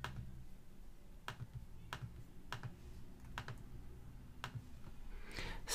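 About seven faint, irregularly spaced clicks of a computer mouse being clicked, over a low steady hum.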